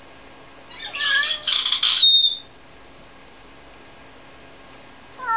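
Ragdoll cat calling loudly for its owner, who is out of sight. The cat gives one long, harsh cry that starts about a second in, then a short meow near the end.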